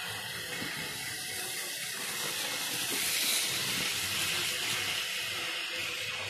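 A steady hiss like escaping steam, swelling louder about three seconds in.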